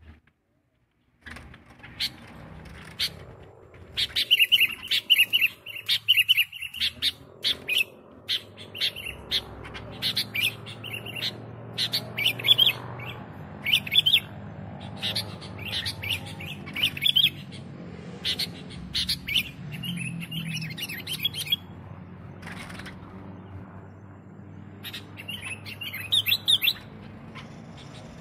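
Sooty-headed bulbul singing: repeated short, bubbly phrases, some loud, over a low steady hum. The song starts about a second in.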